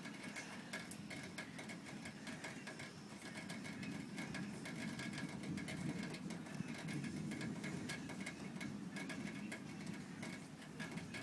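Faint distant thunder rumbling, swelling through the middle and easing off again, under quick steady ticking.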